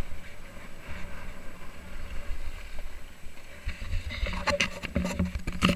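Skis sliding and scraping over packed snow, with wind rumbling on the camera microphone. In the second half, a run of sharp clicks and knocks as the skier slows among other skiers.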